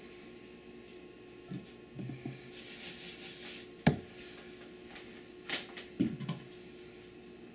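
Kitchen handling sounds over a faint steady hum: a few soft knocks and a brushing rustle, then a sharp wooden knock about four seconds in, and a cluster of lighter knocks around six seconds.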